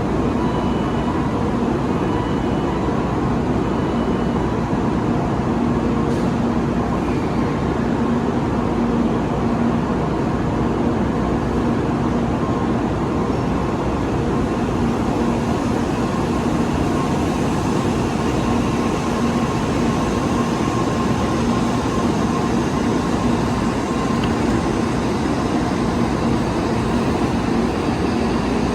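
Steady running hum of a train at a station platform, with a few short high beeps in the first few seconds.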